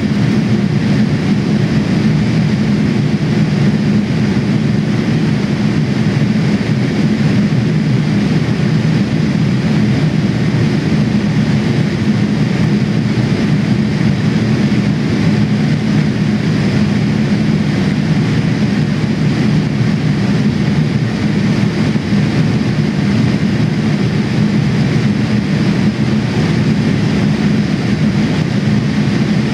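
Steady cabin noise of a Boeing 787-8 airliner in flight, heard from a window seat over the wing: a low drone of engines and airflow with a hiss above it, unchanging throughout.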